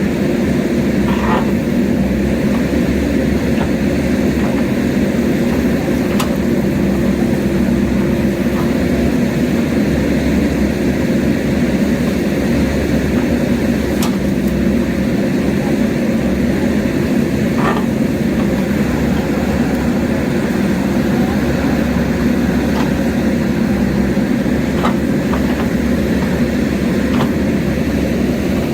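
Diesel engine of a JCB backhoe loader running steadily at work, with a few faint clicks or knocks now and then.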